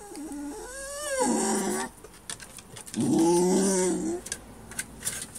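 A dog whining and grumbling at the cockatoo it wants to play with, in two bouts: a rising, wavering whine that turns into a rough grumble, then a second, louder grumbling moan about three seconds in.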